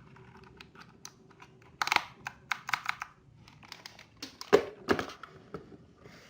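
Keycaps being pressed back onto the switches of a Digital Alliance Meca Warrior mechanical keyboard: a run of irregular plastic clicks and snaps, loudest about two seconds in and again near the five-second mark.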